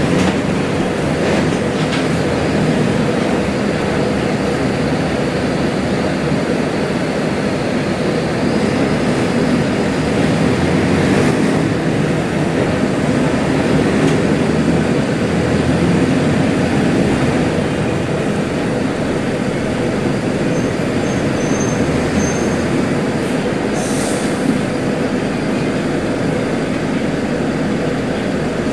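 Mercedes-Benz OF-1721L Euro 5 bus's front-mounted diesel engine running loudly, a steady drone mixed with road noise. There are a few short clicks, and a brief high hiss about three quarters of the way through.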